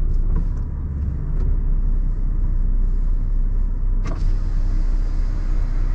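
Renault T480's six-cylinder diesel running, heard as a steady low rumble inside the truck cab, with one sharp click about four seconds in.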